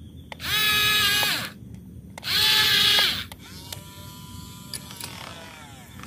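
Yigong toy RC excavator's small electric motors whining as the arm moves: two loud whirs of about a second each, rising in pitch as they start and dropping as they stop, then a quieter whir through the second half.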